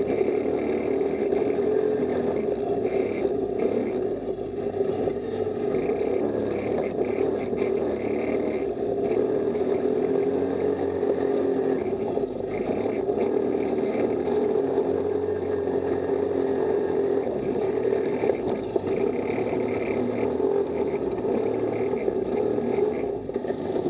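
Off-road buggy engine running steadily while driving over rough, muddy ground, heard from a camera mounted on the buggy, the engine pitch rising and falling a little with the throttle.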